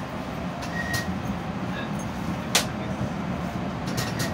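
Interior running noise of a CAF-UTA 3700 light-rail tram in motion: a steady low rumble broken by a few sharp clicks, the loudest about two and a half seconds in.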